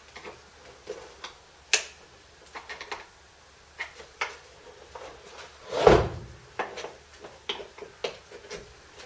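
Irregular sharp plastic clicks and knocks as a screwdriver pries at the clips holding the foot on a Karcher K2 pressure washer's plastic casing, with one louder, longer clunk about six seconds in.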